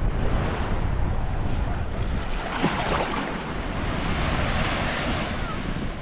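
Sea surf breaking and washing on the beach, with wind buffeting the microphone as a steady low rumble; a wave surges up loudest about two and a half seconds in and lasts a few seconds.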